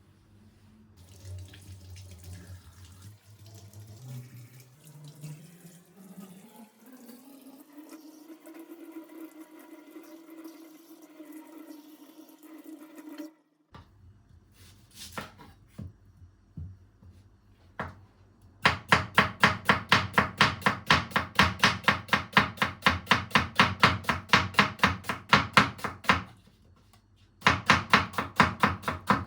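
Water running from a tap into a vessel, its tone rising steadily as the vessel fills, then cut off. Several seconds later a knife chops rapidly and evenly on a cutting board, pausing briefly and starting again.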